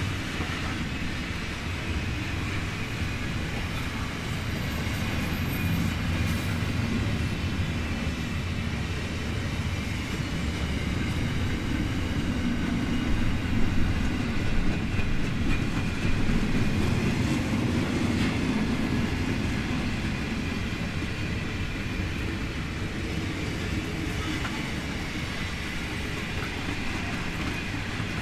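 Intermodal freight train rolling past: a steady rumble of wheels on rail that swells for several seconds in the middle, with a few sharper knocks about halfway through.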